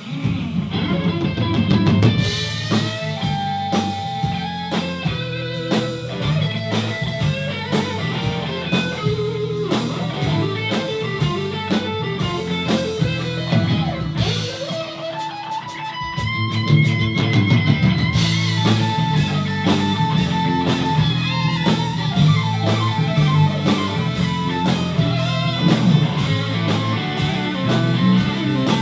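Instrumental break of a rock band: an electric guitar playing a lead line of held and bending notes over bass and drum kit, the band thinning out briefly about halfway through before coming back in full.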